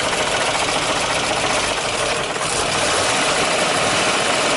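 GAZ-53 truck's freshly rebuilt V8 petrol engine running steadily at idle. The engine is still warming up.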